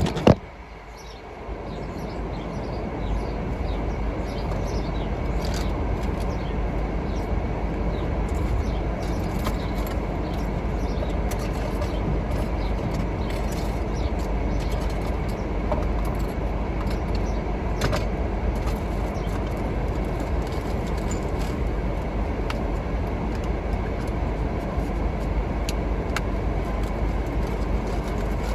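Car running, heard from inside the cabin: a steady low rumble that builds up over the first couple of seconds, after a sharp click at the very start.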